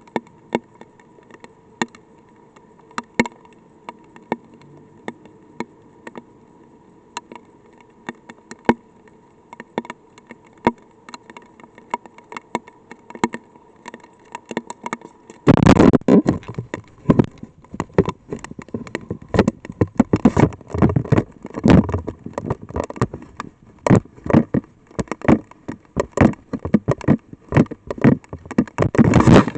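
Light rain, its drops ticking one by one on the weather probe and its microphone, over a faint steady hum. About halfway through the hits turn suddenly much denser and louder, with heavy low thuds.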